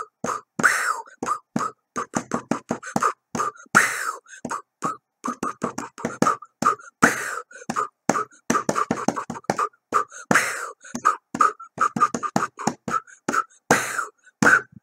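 Beatboxing: a fast, rhythmic run of short mouth-made percussion hits, with a longer noisy burst about every three seconds.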